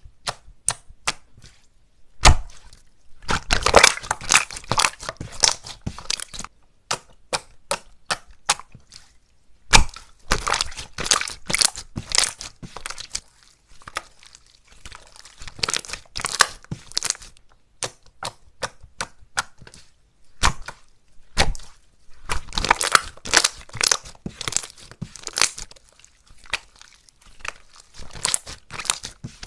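Slime being squeezed and pressed by hand, giving sharp crackling pops and clicks that come in dense clusters with short pauses and scattered single pops between.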